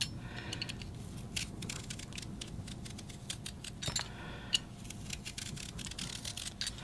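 Vegetable peeler scraping down the flat face of a raw carrot in repeated short strokes, taking off thick strips. Faint, with a few sharper clicks along the way.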